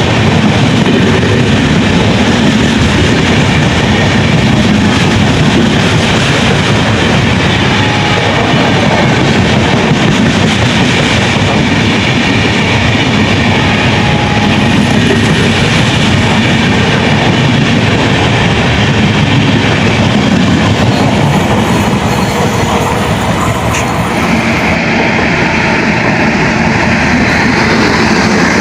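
Express passenger train running at speed on the track: a steady, loud rush of wheel and rail noise.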